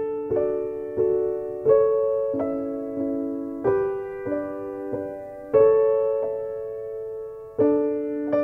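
Background music: slow, gentle solo piano, with notes and chords struck about once a second and left to ring and fade.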